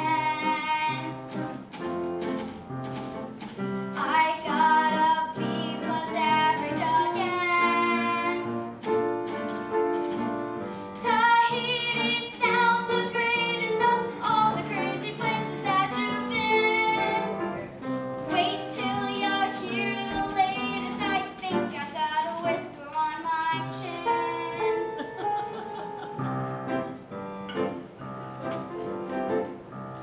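A child singing a show tune over instrumental accompaniment, with sharp clicks scattered through.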